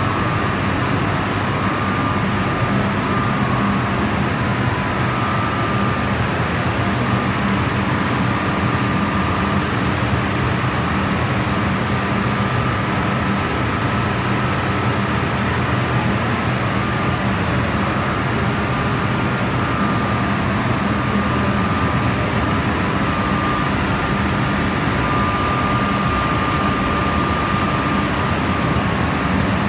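850 kW Francis water turbine and its generator running steadily under load: an even, loud machine hum with a steady high whine over it.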